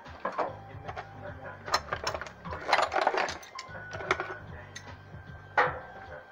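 Metal tools clicking and clanking in an engine bay, a run of quick clicks about three seconds in and a single sharp knock near the end, with music playing in the background.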